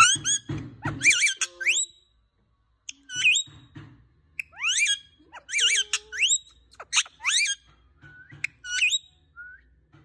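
Green ringneck-type parakeet calling in about six short bursts of whistles and screechy chatter, its notes sliding up and down in pitch, with a short pause about two seconds in.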